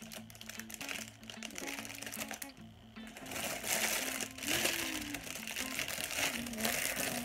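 Background music with low sustained notes, then from about three seconds in, loud crinkling and rustling of packaging as a gift of sweets is unwrapped.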